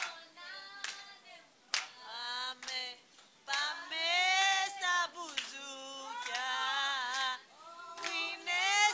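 Unaccompanied singing of a zeibekiko tune, long wavering notes, with a few sharp hand claps, the loudest near the start and again about eight seconds in.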